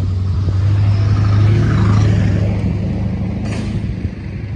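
A road vehicle's engine passing close by, its low hum swelling to a peak about two seconds in and then fading away. A sharp click comes about three and a half seconds in.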